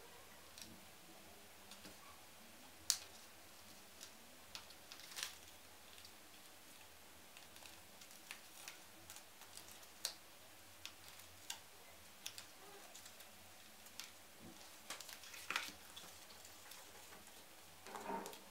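Hands handling and folding leather pieces on a paper-covered worktable: faint, scattered taps, clicks and rustles, the sharpest about three seconds in.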